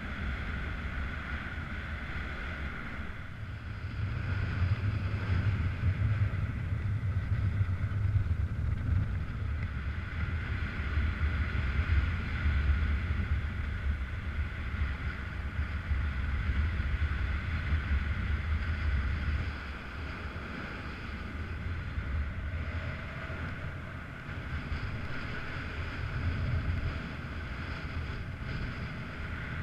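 Wind noise on the camera microphone of a paraglider in flight: a steady low rumbling buffet with a fainter hiss above it. It gets louder about four seconds in and eases off near twenty seconds.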